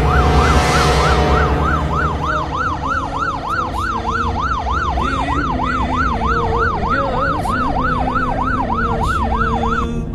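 Police siren on a fast yelp, its pitch sweeping up and down about three times a second, growing louder over the first two seconds and cutting off just before the end. A burst of noise sits under it in the first second or so.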